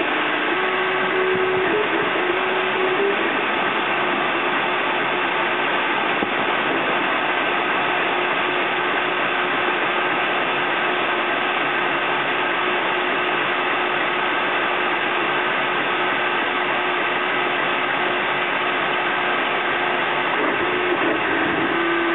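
3D printer at work: the stepper motors whine in steady tones that jump between pitches as the print head changes moves, in the first few seconds and again near the end, over a steady mechanical whirr.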